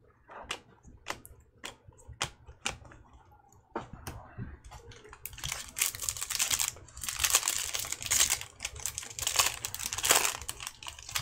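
Topps Chrome baseball cards handled by hand: scattered single clicks as cards are flicked, then from about five seconds in a denser run of shuffling and riffling through the stack.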